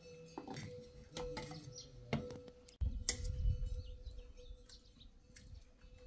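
Small birds chirping, with a few sharp clinks of a spoon on a steel plate. A low rumble comes in suddenly about three seconds in and is the loudest sound.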